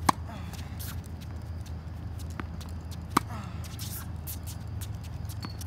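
Tennis ball struck by a racket on backhands, two sharp hits about three seconds apart, near the start and a little past the middle. A softer tap of the ball bouncing on the hard court comes shortly before the second hit and again near the end, with shoe scuffs on the court between.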